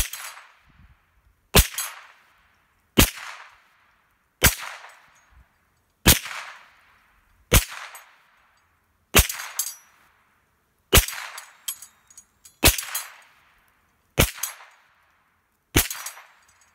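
Henry Frontier .22 lever-action rifle fired eleven times, one shot about every second and a half, at a swinging steel target. Each sharp crack is followed by a short metallic ring as a steel paddle is hit.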